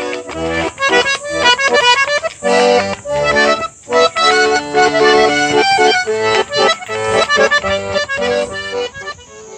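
Small accordion played, a tune of held chords and a melody with quick note changes, with a brief pause about four seconds in.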